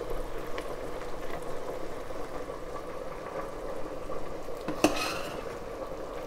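A spoon stirring a stainless steel pot of thick, simmering tomato sauce freshly topped with olive oil, over a steady faint bubbling. One sharp clink of the spoon against the pot about five seconds in.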